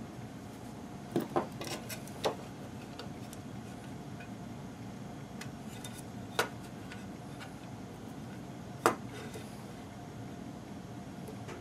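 Sharp clicks and taps of small hard objects, a soldering iron and a circuit board handled on a workbench during desoldering: a cluster of four in the first couple of seconds, one about six seconds in and the loudest near nine seconds, over a steady low background hum.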